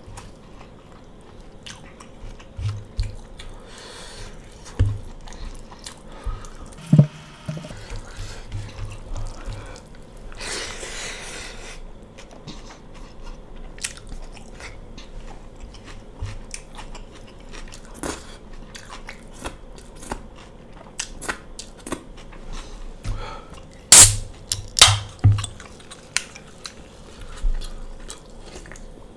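Close-miked eating sounds of mutton curry and rice eaten by hand: chewing, biting meat off the bone and small wet mouth clicks. A cluster of loud sharp clicks comes a few seconds before the end.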